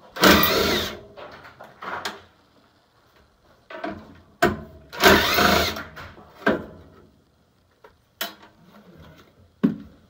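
Cordless impact driver run in two bursts, one at the start and one about halfway through, each lasting about a second, backing out the mounting screws of a furnace inducer motor. Short clicks and knocks of the tool and parts come in between.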